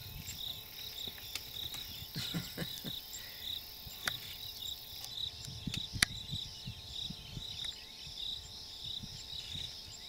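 Insects chirping in a steady, regular pulse of about three high chirps a second, with soft low rustles and rumbles underneath and one sharp click about six seconds in.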